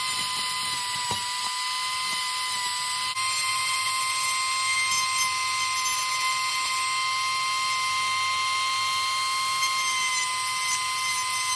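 Handheld electric rotary tool running at a steady high speed, a constant high whine, while its spinning grinding bit widens the speaker recess in a helmet's foam liner.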